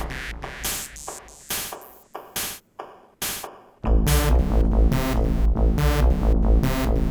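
Electronic beat played on a Teenage Engineering OP-Z sample track and PO-24 Office Pocket Operator: quirky sampled percussion and synth sounds over a steady rhythm. The deep bass and most of the beat drop out for a couple of seconds, then the full beat comes back in about four seconds in.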